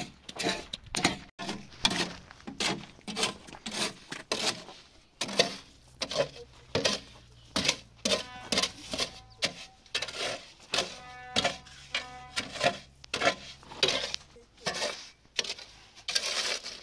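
A hand tool striking again and again in a steady rhythm, about two strokes a second, typical of digging. A drawn-out tone sounds in the background from about halfway through.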